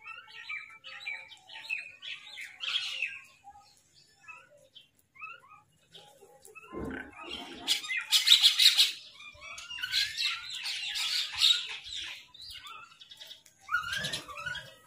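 Crows calling: a flurry of short chirping calls, then louder, rougher caws in two long runs through the middle.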